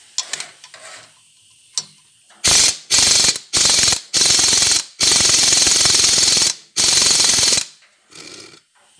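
Pneumatic impact wrench hammering on an exhaust manifold bolt in a cast engine block, in six bursts starting a couple of seconds in, from short blips to one of about a second and a half. The bolts are original and rusted in, and this one does not come free.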